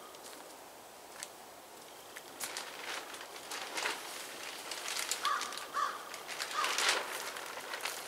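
Footsteps and movement rustling and crunching through dry fallen leaves, irregular and loudest about four and seven seconds in. A bird calls twice in quick succession a little after five seconds in.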